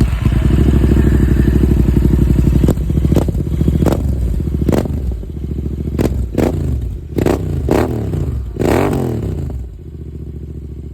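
Royal Enfield GT650's parallel-twin engine through aftermarket stainless steel exhausts with the dB killers removed: it fires up and runs at a fast idle, then is blipped about eight times in quick revs before settling to a lower idle near the end.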